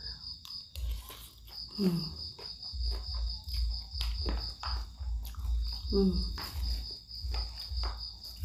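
Close-up eating sounds from a bowl of laksa: chewing and slurping noodles, with short clicks and low thumps, and twice a short low hum. A steady high-pitched trill runs behind.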